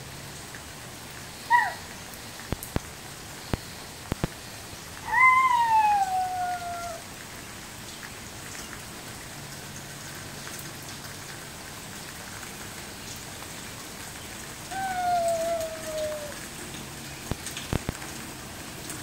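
Steady rain falling on a wet patio, with a toddler's high vocal calls that fall in pitch: a short one, then a long one about five seconds in, and a third near the end. A few sharp ticks of drips or taps fall in between.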